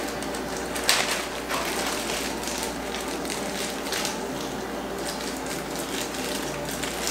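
Plastic zip-top bag crinkling and rustling as it is squeezed and rolled to press the air out, with a sharper crackle about a second in and a few more later.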